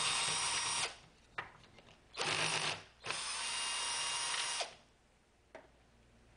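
Cordless drill running in three bursts of about a second each, with short pauses between them. The last and longest burst stops about three-quarters of the way through, and a single faint click follows.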